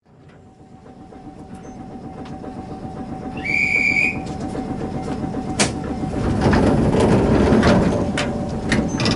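Inside the cabin of Jomo Electric Railway DeHa 101 running under power: its nose-suspended traction motors and gearing give a heavy, steady running noise that fades in at the start. A short high whistle-like tone sounds about three and a half seconds in, and sharp clicks follow from about five and a half seconds.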